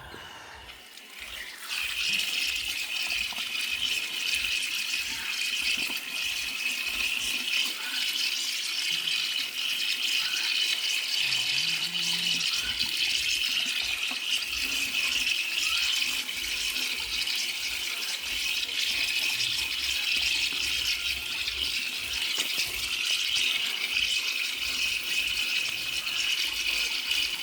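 Water running steadily as chicken drinkers are washed under it. It comes on about two seconds in.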